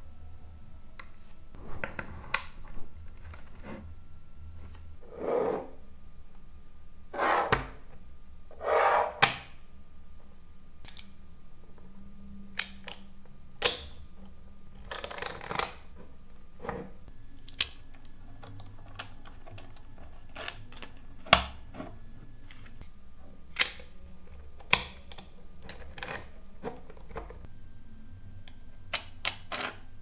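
Small magnetic balls clicking and snapping together as a ball structure is pulled apart and reshaped by hand, with irregular sharp clicks and several longer rattles of balls sliding and clattering against each other.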